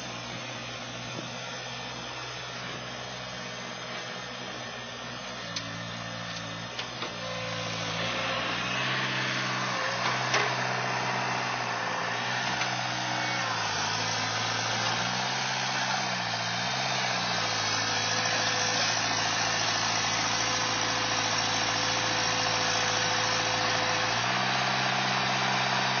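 Skid steer loader's engine running under load while the machine is stuck in mud. Its level rises about eight seconds in as it is throttled up, and its pitch shifts a few times after that.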